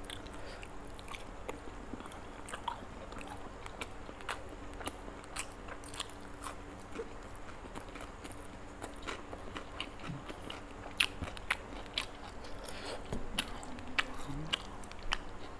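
A man chewing and crunching food close to the microphone: irregular soft crunches and mouth clicks, with a few louder crunches in the second half.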